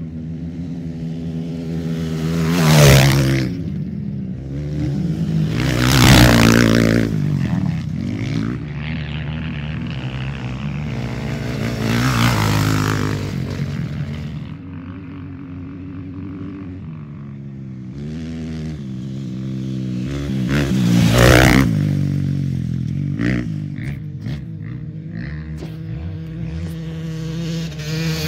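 Off-road racing dirt bikes passing at speed one after another, each engine swelling to a peak and fading away, with the loudest passes about 3, 6, 12 and 21 seconds in. A steady engine drone fills the gaps between passes.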